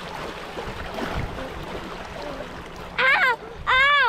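Small waves lapping and splashing against shoreline rocks. About three seconds in, a child gives two loud, short, high-pitched exclamations, the second rising and then falling in pitch.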